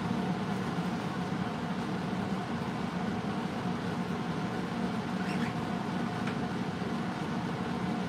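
Steady machine hum from a running fan-type appliance, unchanging throughout, with a faint short bird chirp about five seconds in.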